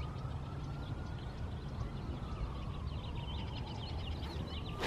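Outdoor ambience with a low wind rumble and small birds chirping. Right at the end comes a single sharp click: a golf iron striking the ball on a full swing.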